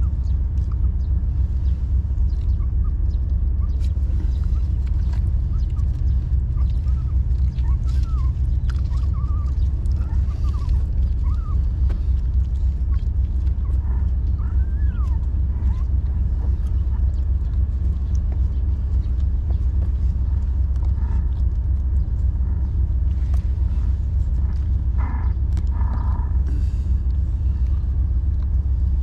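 A loud, steady low rumble throughout. Faint short squeaks come and go in the first half, and two brief louder calls are heard near the end.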